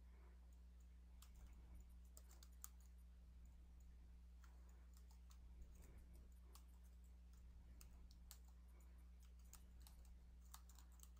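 Faint computer keyboard typing: irregular keystroke clicks over a steady low electrical hum.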